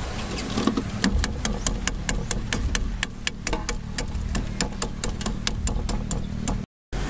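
Rapid, even ticking, about five ticks a second, over a steady low rumble. The sound cuts out for a moment near the end.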